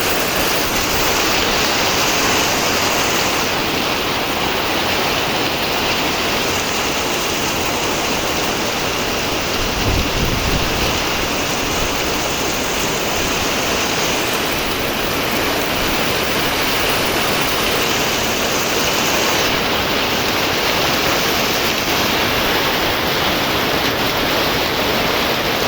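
Heavy rain falling as a steady, loud hiss with no break. About ten seconds in there is one brief low thump.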